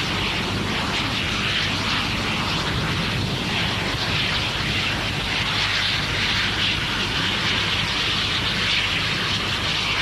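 Steam locomotive running at speed and working hard, its exhaust and running gear merging into a steady roar over a low rumble.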